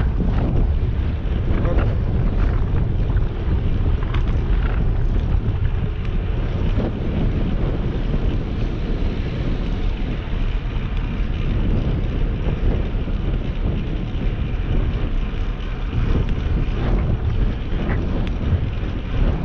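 Wind buffeting the microphone of a GoPro Hero 7 White on a moving bicycle: a steady, deep rushing noise.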